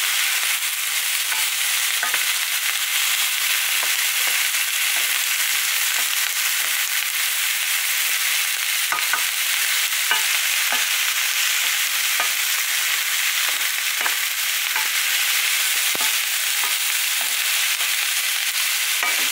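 Sliced zucchini, onion and bell pepper sizzling in hot oil in a nonstick frying pan over high heat, with a steady hiss. A wooden spatula stirs them, scraping and knocking lightly against the pan now and then.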